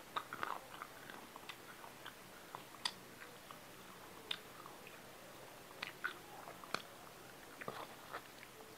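Close-miked chewing and mouth noises of a person eating rice and curry by hand: irregular wet smacks with scattered sharp clicks.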